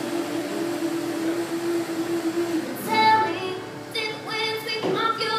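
Live music: a single low note held steady, then from about three seconds in a high voice singing.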